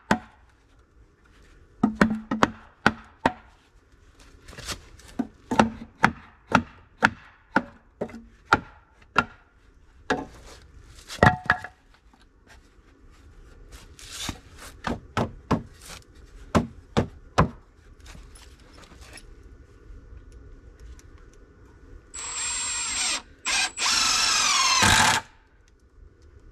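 Sharp knocks on wood, roughly two a second, for about fifteen seconds. Near the end a cordless driver runs in two short bursts, its motor whine climbing in pitch as it drives screws into the wooden frame.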